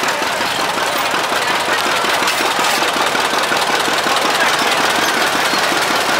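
Antique John Deere two-cylinder tractor engine running as the tractor drives slowly past, its exhaust beating in a rapid, even knock.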